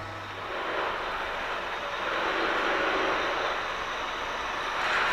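Heavy goods truck running: a steady rushing drone that gets louder about two seconds in and again near the end.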